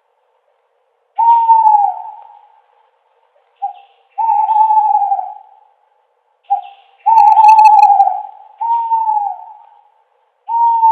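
Owl hooting: a series of hoots of the same pitch, some short, some held about a second, several trailing off in a falling slide, with pauses between them.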